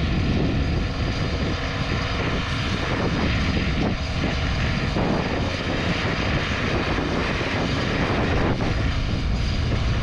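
An engine running steadily, heard under strong wind buffeting the microphone with a rough, shifting rumble.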